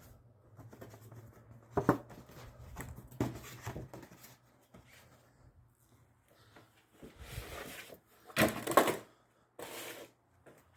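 Handling sounds of a new engine air filter being fitted into its plastic air box: a few knocks and rubbing, with louder rustling and scraping near the end.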